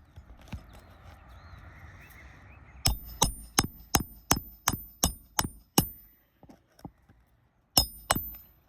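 A hammer driving roofing nails through asphalt shingles: a run of about nine sharp blows, roughly three a second, then two more blows near the end.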